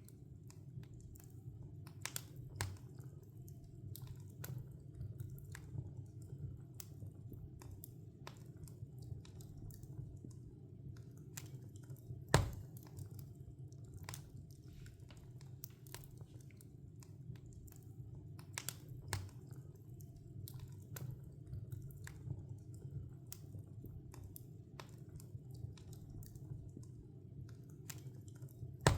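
Wood log fire crackling, with irregular sharp pops and snaps over a low, steady rumble of the flames. One much louder pop comes about twelve seconds in, and another near the end.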